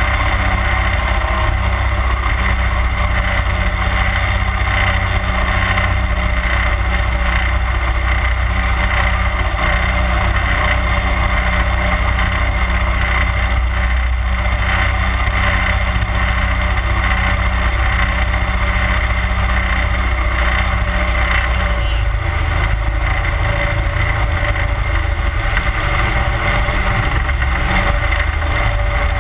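31 hp Mud Buddy Hyperdrive mud motor running steadily, driving a jon boat along at cruising speed. The engine note changes about three-quarters of the way through.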